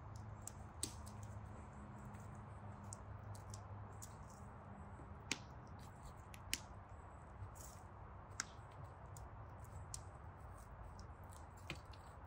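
Scattered sharp clicks and snaps, a few louder than the rest, over a faint low steady hum.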